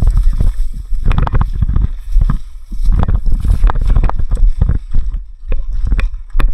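Heavy rumble of wind and handling noise on a body-worn camera microphone, with irregular knocks and clicks of gear as the wearer moves.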